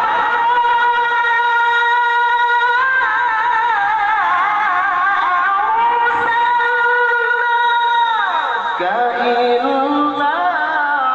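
A man reciting the Quran in the melodic tilawah style, with a cough and cold. He holds a long high note, moves into wavering ornamented runs, then slides down to lower notes about three-quarters of the way through and climbs back up near the end.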